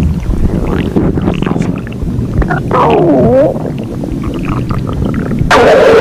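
Stomach growling sound effect: loud low rumbling with a gurgle that slides down and back up about halfway through, the sound of a hungry stomach. A louder, sustained sound cuts in suddenly near the end.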